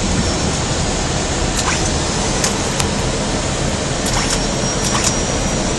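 Steady rushing noise of an airliner cockpit in flight, engines and airflow blended into an even hiss with a faint high steady tone. A few brief clicks come from about two seconds in.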